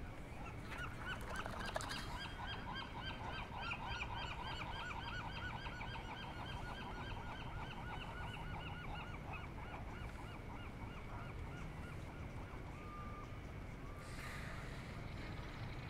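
An animal calling in a long, rapid series of short repeated calls, several a second, that begins about half a second in and fades out about ten seconds in.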